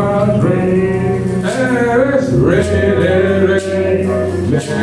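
Church worship music: a man singing long held notes over instrumental backing.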